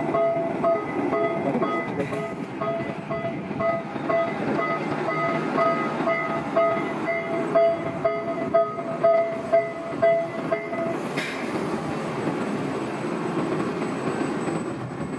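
Panama Canal lock locomotive ('mule') running along its rail track with a steady mechanical rumble and a rapid, evenly repeating warning beep that stops about eleven seconds in.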